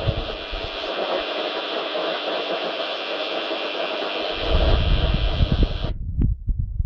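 Shortwave radio static on a Tecsun PL-990 receiver in upper sideband between voice transmissions: a steady hiss with an irregular low rumble under it. About six seconds in the hiss cuts off suddenly and a brief thin tone sounds.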